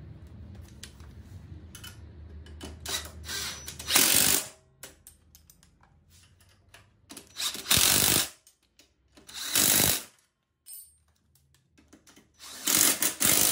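Cordless power driver running in four short bursts of about half a second to a second each, with a few shorter blips, as it drives in the bolts of an ATV's front bumper bar.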